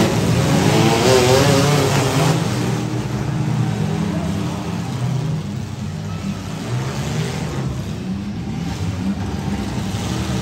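Several compact demolition-derby cars' engines running at once. They rev hardest in the first couple of seconds, then settle to a steadier drone.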